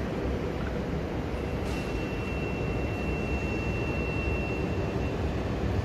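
Railway station concourse ambience: a steady low rumble of trains and the hall, with a thin, high, steady whine held for about three and a half seconds in the middle.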